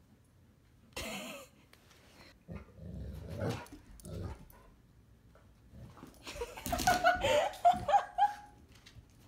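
Dogs scrambling and scuffling over a blanket and floor while chasing a laser-pointer dot. In the last few seconds, the loudest part, a dog gives excited, wavering whines and yips.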